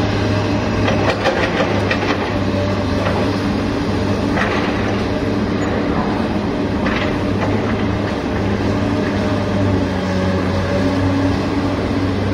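Remote-control toy excavator's electric motors and gears whirring with a steady hum while the arm works, with a few clicks and rattles of rocks dropping against the plastic dump bed.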